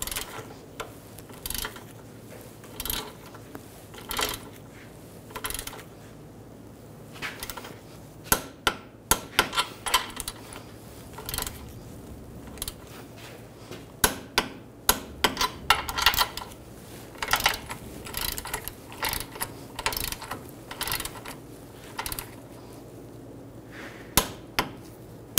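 Metal tool clicks and clinks as a socket and torque wrench tighten the ball-joint nuts to 73 ft-lb on the front lower control arm. The sharp clicks come irregularly, some in quick little runs.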